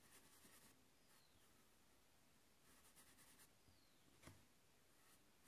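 Near silence: faint strokes of a paintbrush on fabric, with a single light tap a little past four seconds in as the brush is dipped into a small plastic paint pot.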